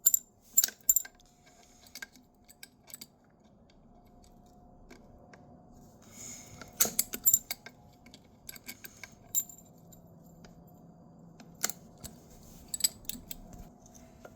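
Metal tool clicking and clinking against an e-bike hub motor's casing as it is worked to unscrew it: scattered sharp metallic ticks, with a quick cluster about halfway through and a few more near the end.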